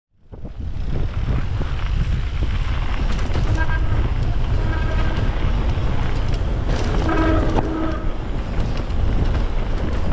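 Mountain bike descending a trail, heard as a steady low rumble of wind on the microphone and tyres on the ground, starting abruptly. Faint brief pitched tones rise above the rumble about three and a half seconds in and again about seven seconds in.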